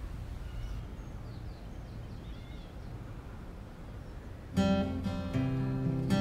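A low steady rumble with a few faint high chirps, then acoustic guitar strumming music comes in about four and a half seconds in and is the loudest sound.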